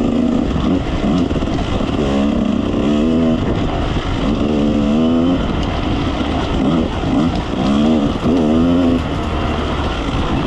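Two-stroke enduro dirt bike engine running, revving up and falling back again and again as the throttle is worked.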